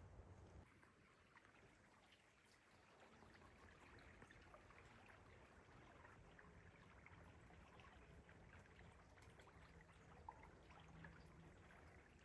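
Faint trickling water, a soft steady flow with many small drips and splashes.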